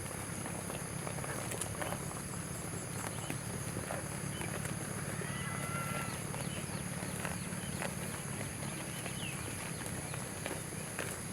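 Quiet livestock-yard ambience: a steady low hum with scattered faint clicks and knocks, and a short faint chirp about five seconds in.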